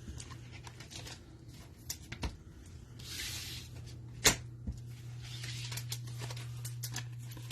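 Trading cards and their hanger-pack packaging being handled: light clicks and rustling, a longer crinkling rustle about three seconds in and another a couple of seconds later, and one sharp tap a little past four seconds, over a steady low hum.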